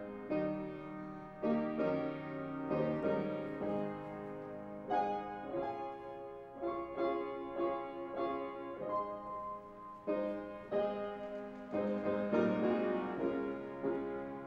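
Upright piano playing a slow piece in full chords, a new chord struck about once a second and left to ring.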